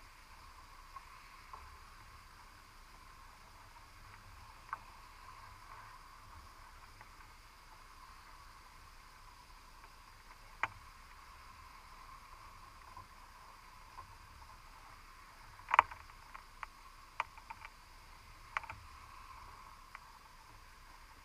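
Underwater recording from a camera housing inside a cod/crab pot: a steady faint hiss with scattered sharp clicks and taps, a few single ones, then a cluster about 16 to 19 seconds in, the first of them the loudest.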